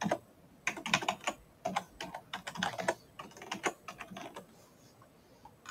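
Typing on a computer keyboard: quick irregular runs of keystrokes that stop about four and a half seconds in.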